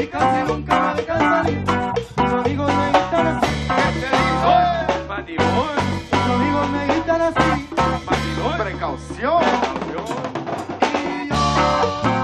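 Norteño band playing live: button accordion over electric bass with a steady beat.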